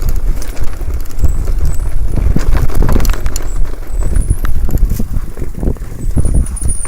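Mountain bike rattling over a rough off-road trail, with a steady low rumble and many quick clicks and knocks, and a few short high squeals near the end.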